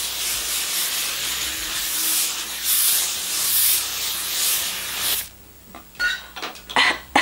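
Aerosol can of Mizani hairspray spraying: one long continuous hiss that cuts off about five seconds in.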